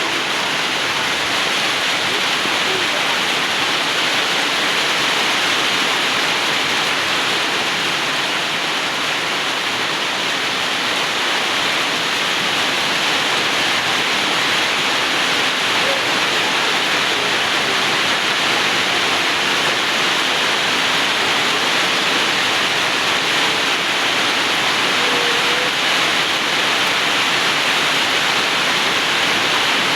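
Heavy rain falling: a loud, steady, even hiss of water.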